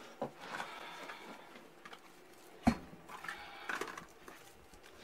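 A hand rummaging among things on a shelf and taking out a cigarette pack: rustling with a few light knocks, and one sharp knock a little under three seconds in, the loudest sound.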